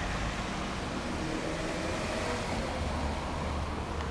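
A car driving past with steady engine and tyre noise; its low rumble grows louder in the second half.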